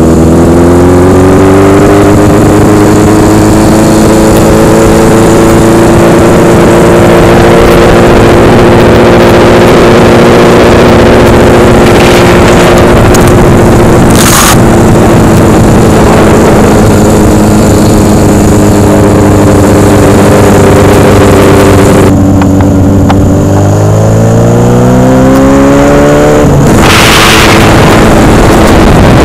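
Customized Honda CB750 K2's SOHC inline-four running on the road. It pulls up through the revs at first, then holds a steady cruise. About three-quarters of the way in the throttle closes and the note drops, then climbs again in a rising rev before falling suddenly, like an upshift. There are two brief rushes of noise, about halfway and near the end.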